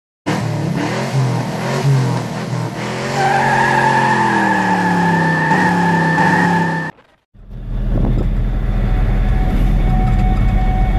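A racing-car intro sound effect with sliding pitches and tyre squeal, which cuts off suddenly about seven seconds in. After a brief silence comes the steady low rumble of a light truck's diesel engine heard inside the cab as it drives.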